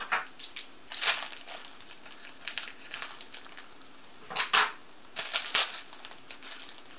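Plastic sweets packet crinkling and crackling in short bursts as it is handled and a corner is torn off to open it, loudest about four and a half to five and a half seconds in.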